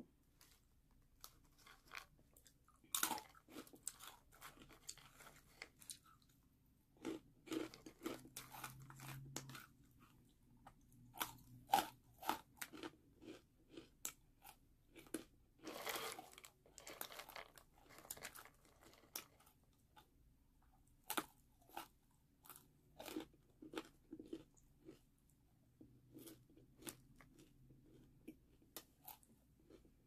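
Crunchy snack food being bitten and chewed, in irregular crisp crunches that come in short clusters with quieter gaps between.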